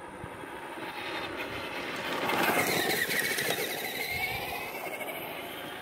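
Traxxas electric RC car driving past: its motor and gear whine grows louder, peaks about halfway through, then fades away.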